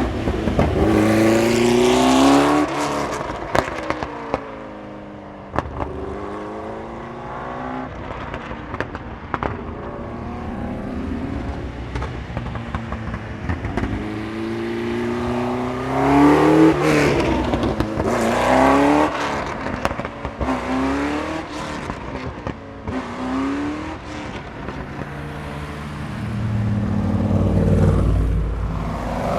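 Porsche 908/3's air-cooled 3.0-litre flat-eight racing engine accelerating hard through the gears, its revs climbing and dropping again several times, with sharp crackles from the exhaust.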